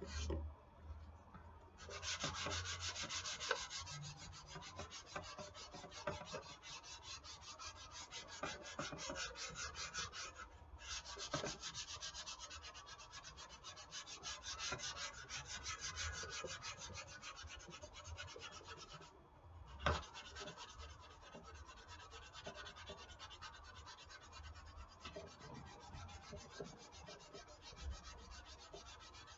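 220-grit sandpaper rubbed by hand over dried wall spackle on a foam RC airplane wing, knocking the filler down: a rapid, scratchy back-and-forth rubbing that stops briefly three times, with a single knock about two-thirds of the way in.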